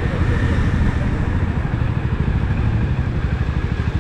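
Motorcycle engine running steadily during a ride, a fast even low pulsing of its firing.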